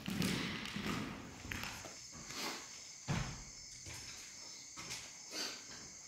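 Footsteps on a gritty floor strewn with debris, a step every second or so. A steady high insect trill joins about a second and a half in.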